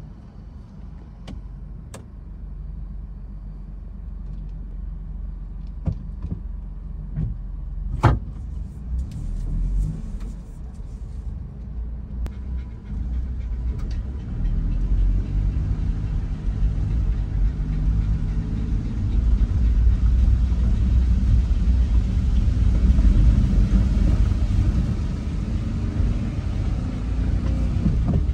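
Car driving on a mud- and water-covered road, heard from inside the cabin: a low rumble of engine and tyres with a hiss of wet tyres, growing louder about 14 seconds in. A single sharp knock about 8 seconds in.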